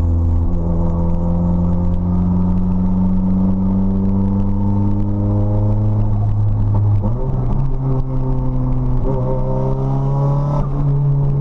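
Straight-piped Nissan SR20DET turbocharged four-cylinder engine under way, its pitch climbing slowly as the car pulls. About seven seconds in the note changes abruptly; it then climbs again and falls away sharply near the end, with a brief hiss just before the drop.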